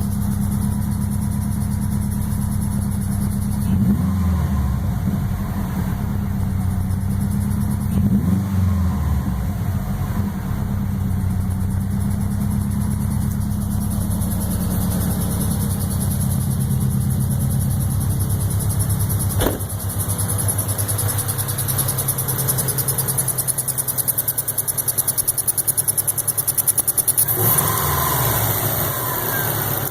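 2002 Subaru WRX's turbocharged flat-four engine running at idle, blipped up and back down three times: about four seconds in, about eight seconds in and near the end. A single sharp click about two-thirds of the way through. The owner is hunting a chirp that he places around the turbo inlet.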